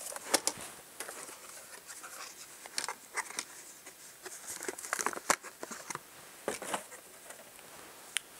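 Irregular clicks, taps and rustling of small objects being handled and rummaged through while a 9-volt battery is fetched, with the sharpest click about five seconds in.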